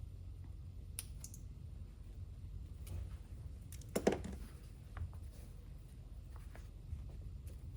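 Handling noise from fitting a magnet-held insulated window cover: scattered light clicks, with one louder clack about four seconds in, over a low steady hum.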